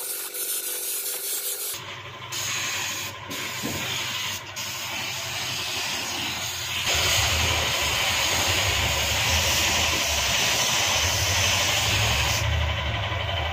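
Compressed-air spray gun hissing as it sprays black paint onto an iron grill, with an air compressor's motor humming underneath. The hiss starts about two seconds in and gets louder about seven seconds in.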